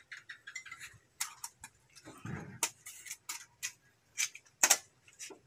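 Irregular sharp clicks and taps, about ten of them with the loudest near the end, from an air rifle being handled and loaded.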